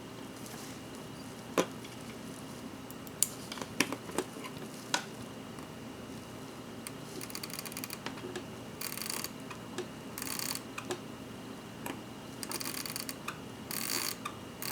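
Crown of a vintage Everite hand-wound watch being worked to wind the mainspring: a few sharp small metallic clicks, then a run of short scratchy rasps as the small, worn crown is turned.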